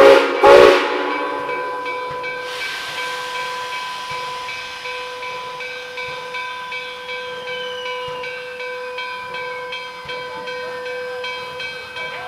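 Steam whistle of NKP 760, carried on Nickel Plate Road 765, finishing its crossing signal: the end of one blast right at the start and a second short blast about half a second in. After that the grade-crossing bell rings steadily, and from about two and a half seconds the locomotive's steam hiss joins it.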